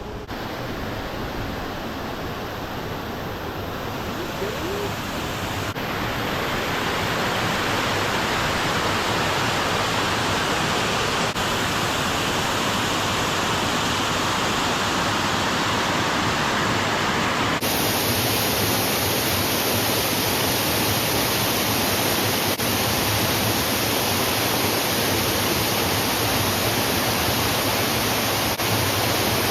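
Waterfall: a steady rush of falling water, growing louder over the first several seconds. Its tone changes abruptly a little past the middle.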